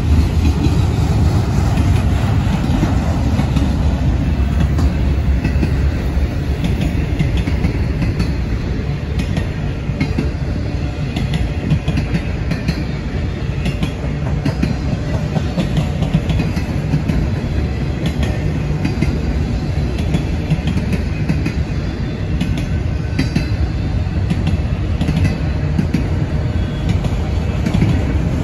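Freight train autorack cars rolling past at speed: a steady low rumble of steel wheels on rail, with faint clicks and clacks from the wheels and couplers.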